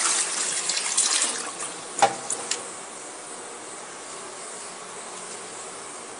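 Toilet flush ending, the rush of water in the bowl dying away over the first two seconds. About two seconds in comes a sharp knock, the lid and seat closing, with two lighter clicks just after. A steady faint hiss of water then carries on, the cistern refilling.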